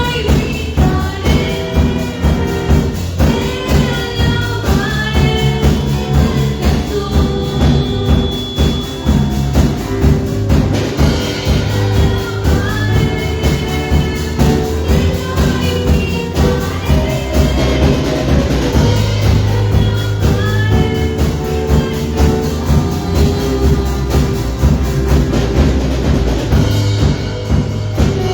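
Christian praise song: singing over a band with a steady, driving beat.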